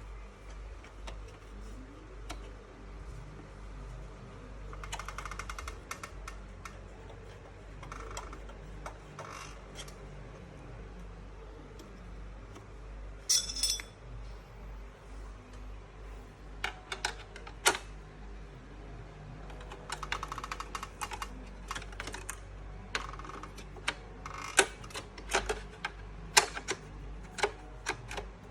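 Tools and metal computer parts being handled: scattered sharp clicks and short runs of rapid ticking, with a louder metallic clatter about halfway through.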